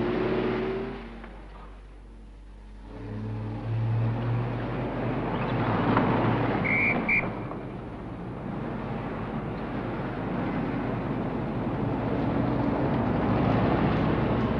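City street traffic: car engines and tyres in a steady wash of noise. A low engine hum swells about three seconds in, and two short high-pitched beeps sound about seven seconds in.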